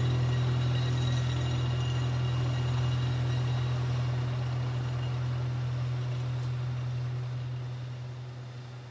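Heavy construction machinery running with a steady low drone that fades out near the end.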